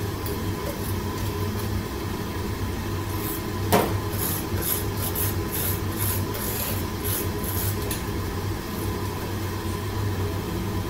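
Steady drone of a commercial kitchen's wok range and exhaust, with a sharp metal clink about four seconds in, then a quick run of short scrapes over about four seconds: a spoon scraping roasted salt in a stainless steel tray.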